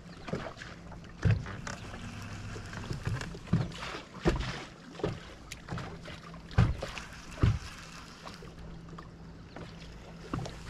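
Water slapping against a bass boat's hull, with several irregular knocks over a steady low hum.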